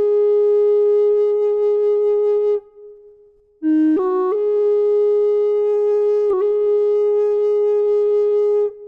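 Solo flute playing slow music in long held notes: one note sustained for about two and a half seconds, a short pause, a brief lower note, then another long held note.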